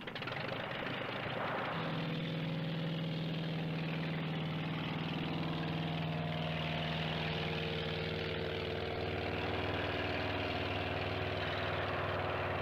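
Piston engine of a Cierva autogiro running at a steady pitch, a constant drone that settles in about two seconds in over a background hiss.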